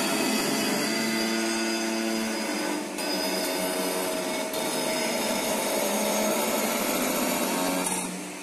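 DW75CNC2A1S CNC tube bending machine working through a bending cycle: a steady mechanical whine with several held tones that shift in pitch as the machine moves from one step to the next. The sound dips briefly about three seconds in and eases off near the end.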